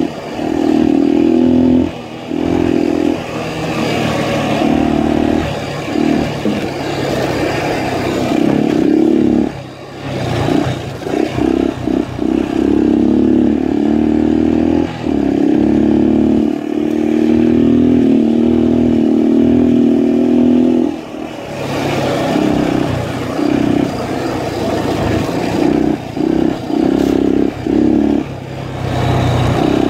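Honda XL250's single-cylinder four-stroke engine running under way, the throttle opened and closed again and again, so the engine note repeatedly rises and drops away.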